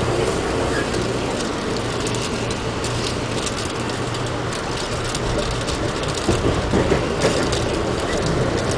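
Ride noise heard from inside an Amtrak passenger coach moving along the track: a steady rumble of wheels on rail with scattered clicks and rattles, and a few louder knocks about six to seven seconds in.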